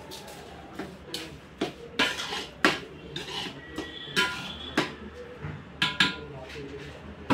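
Metal ladle stirring in a large metal cooking pot: a run of irregular clanks and scrapes against the pot, several ringing briefly.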